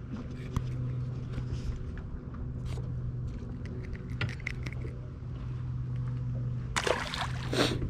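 Steady low hum of a boat motor holding an even pitch, with scattered light clicks and a brief hissing rush about seven seconds in.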